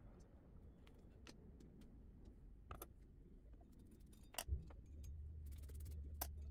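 Faint metallic clicks from a machine vise being tightened with a hex key, then a sharper click and thump about four and a half seconds in, after which a low steady hum from the desktop CNC mill starts.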